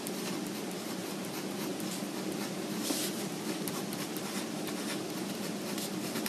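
Steady room hum with faint, scattered small scratches and taps, like light handling or writing.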